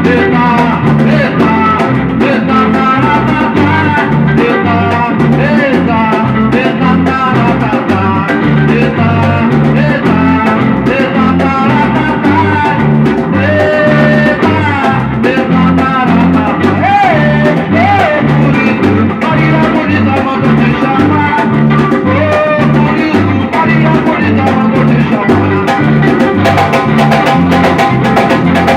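Samba-reggae band playing a passage with no lyrics: a bass line, guitar and percussion in a steady groove, with a lead melody that bends in pitch.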